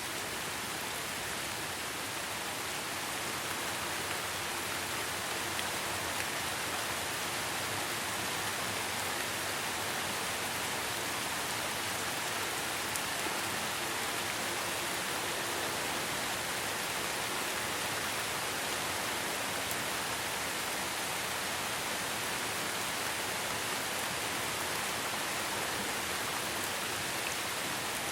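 Steady rain, an even hiss of many drops with no distinct individual hits.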